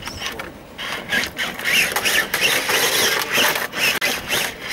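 Electric motor and gearbox of a Venom Creeper RC rock crawler whining, its pitch rising and falling with the throttle, with clicks and knocks of the tyres and chassis on rock as it climbs.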